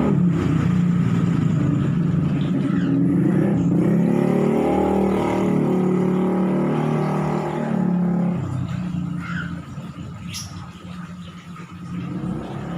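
An electric motor running loudly and steadily, its pitch wavering slightly, then winding down about eight seconds in.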